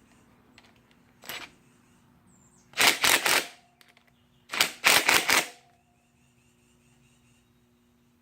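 Impact wrench hammering on a sprocket fastener: a short blip about a second in, then two loud bursts of rapid rattling blows, each lasting under a second, about two seconds apart.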